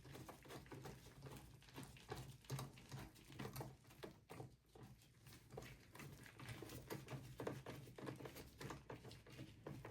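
Faint, irregular small clicks and light taps of hands handling parts and cables inside a desktop computer case, over a faint steady low hum.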